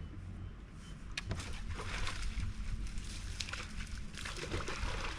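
Water sloshing against a fishing boat's hull under a low steady rumble, with a few small knocks.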